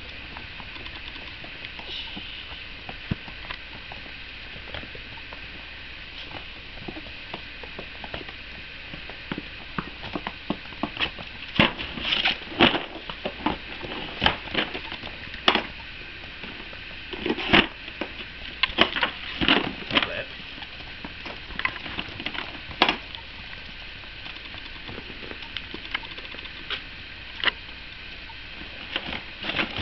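Puppies' claws clicking and pattering on a hard wood-look floor as they scamper and play, in scattered runs of quick ticks that come thickest in the middle.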